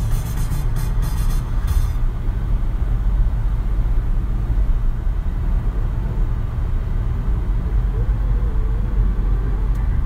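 A car in motion: a steady low rumble of engine and road noise.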